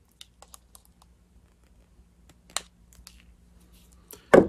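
Light clicks and taps of small metal insignia and hand cutters being handled on a cloth-covered worktable, with a sharper click about two and a half seconds in and two louder knocks near the end.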